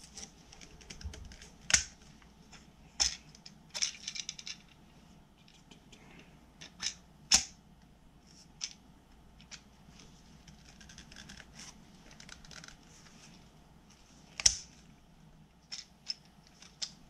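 Sharp hard-plastic clicks, rattles and scrapes as a DeWalt DWV9000 dust-extraction adapter is worked onto a sander's dust port and its ball-bearing locking collar is twisted, failing to lock. The clicks are scattered and irregular, with the loudest about two seconds in, a quick cluster around four seconds, and single loud ones near seven and fourteen seconds.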